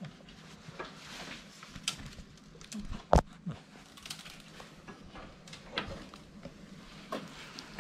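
A kitten playing with a wand toy on a concrete floor: scattered light taps and scuffs from paws and toy, with one loud knock about three seconds in.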